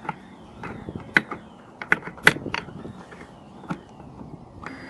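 Irregular sharp clicks and taps of needle-nose pliers against the plastic mirror housing and turn-signal assembly while a small wire clip is worked loose, the loudest a little after two seconds in.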